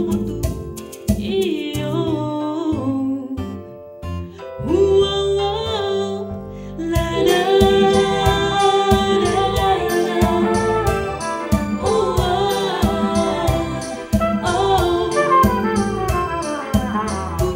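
A woman sings a soulful song with a live trumpet and a rhythmic accompaniment. The accompaniment fills out with a steady beat about seven seconds in.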